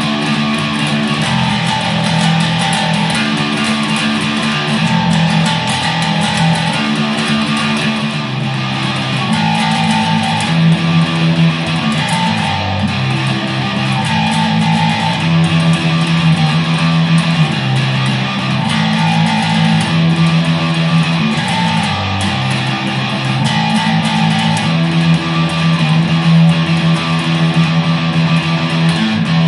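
Electric bass played through distortion, a riff of held, gritty notes that change pitch every second or two.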